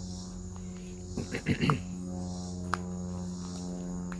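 Steady chorus of insects chirring in the yard over a low steady hum, broken about a second in by a brief cluster of loud scuffing noises and, a second later, a single sharp click.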